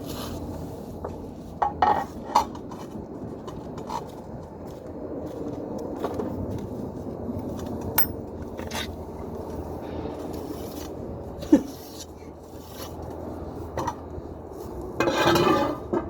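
Tile-repair hand tools scraping and rubbing, with scattered sharp clinks and knocks and a louder burst of noise near the end.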